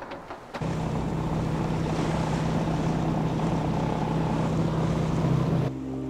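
A boat engine running at a steady pitch, with water and wind rushing past. It cuts off suddenly shortly before the end.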